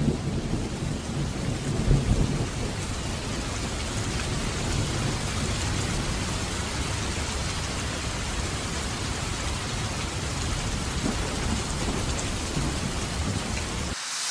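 Heavy rain falling steadily as an even hiss, with thunder rumbling low through the first couple of seconds. It cuts off suddenly near the end.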